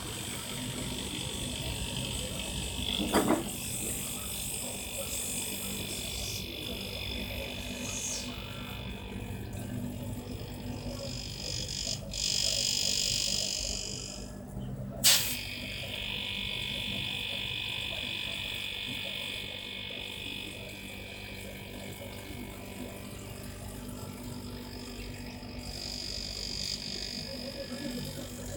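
Refrigerator compressor reused as an air pump, running with a steady electric hum while filling a tyre. A louder stretch of hiss comes about twelve seconds in, and two sharp clicks sound at about three and fifteen seconds.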